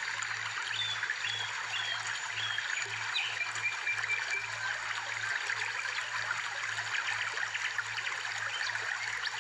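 Running water trickling steadily, with a few short high chirps over the first half.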